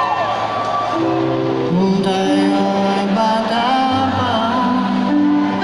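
Live rock band playing through a PA system: held chords from guitars and keyboard under a melodic lead line that bends up and down, with no words sung.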